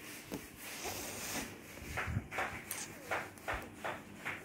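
A run of soft knocks with light rustling, the knocks coming about two a second in the second half.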